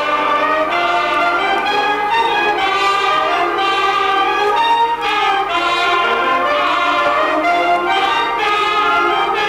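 Wind band (harmonie) playing a piece together, with brass prominent and sustained chords and melody lines.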